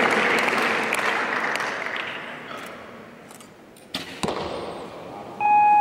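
Recurve bow shot: a sharp crack of the string on release about four seconds in, followed about a third of a second later by a second sharp hit as the arrow strikes the target, after a haze of crowd noise dies away. A steady electronic beep starts near the end.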